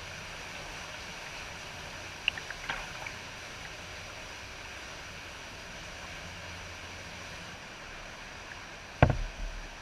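Steady sound of creek water around a kayak, with a few light clicks about two to three seconds in and one sharp knock near the end.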